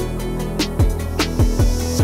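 Background music with a steady beat and deep bass hits that slide down in pitch.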